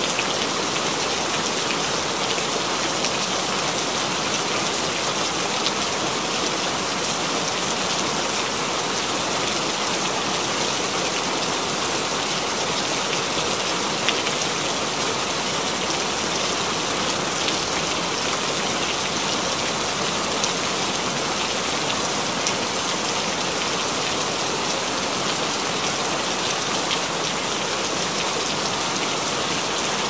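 Steady rain falling: an even hiss of rain with a few sharper drops now and then.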